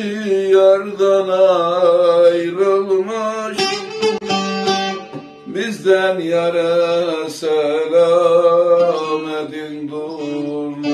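Bağlama (long-necked Turkish saz) played with a plectrum: a folk melody picked over ringing drone strings, with quick strummed strokes in the middle.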